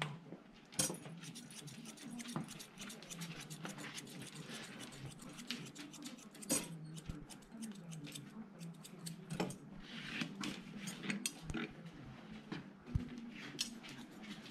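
Grooming scissors snipping through a double-coated dog's fur: a fast, irregular run of small sharp clicks.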